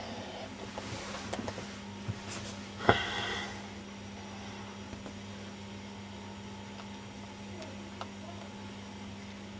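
Steady low electrical hum, with a few light clicks and one sharp knock about three seconds in.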